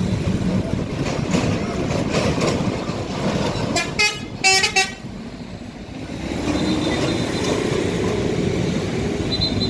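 Two short blasts of a truck horn, about four seconds in and again half a second later, over the steady noise of passing traffic and engines.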